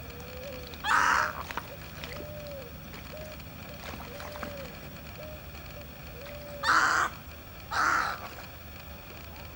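Three loud harsh bird calls, each under half a second long: one about a second in and a close pair near the end. Faint short notes repeat quietly in between.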